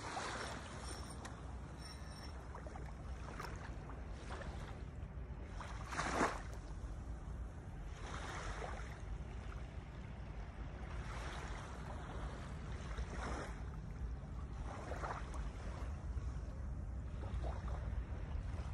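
Quiet shoreline ambience: a steady low rumble of wind on the microphone, with soft washes of small waves lapping on the sand every couple of seconds, the clearest about six seconds in.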